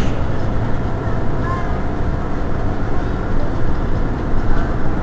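Engine of a Mercedes-Benz Citaro G C2 articulated city bus idling at a standstill: a steady low rumble.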